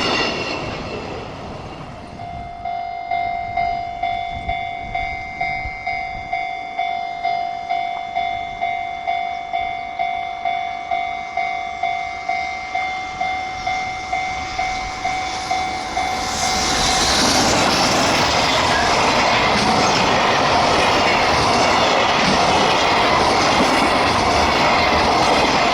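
Level-crossing warning bell ringing about twice a second, then a freight train runs over the crossing, the loud, steady rumble and clatter of its wagons taking over about two-thirds of the way in. At the very start the noise of a passing train is fading away.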